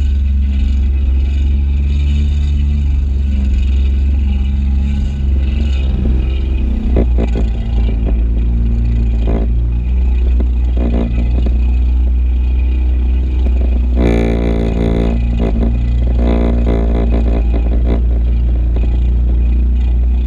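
Kawasaki stand-up jet ski's engine running steadily under way, a deep drone with its pitch shifting slightly. Spells of clattering come through the middle, strongest about two-thirds of the way in.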